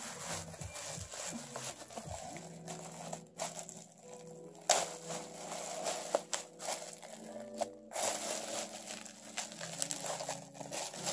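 Crinkling and rustling of packaging being handled while a plastic coffee dripper is unpacked, over background music with sustained notes.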